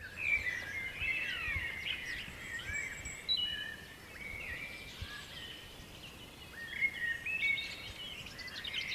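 Woodland birdsong: several small birds singing and chirping at once, with quick whistled notes sliding up and down. It is busiest in the first few seconds and again near the end.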